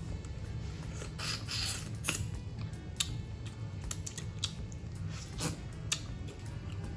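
Close-up eating sounds: scattered wet mouth clicks, lip smacks and chewing as a man sucks and nibbles cooked fish meat off the bones by hand.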